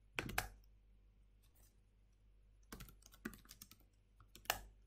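Computer keyboard keys clicking in short bursts of typing: a couple of clicks just after the start, a quick cluster around the middle, and a louder click near the end.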